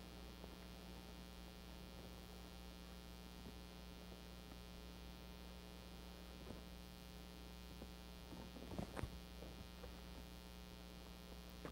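Steady low electrical mains hum at a low level, with brief faint rustles and a click around nine seconds in.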